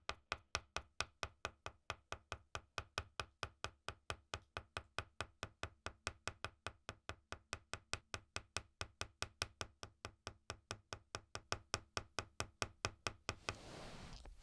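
Sharp, evenly spaced clicks at about four a second, like a ticking clock or metronome; near the end they stop and a rushing hiss takes over.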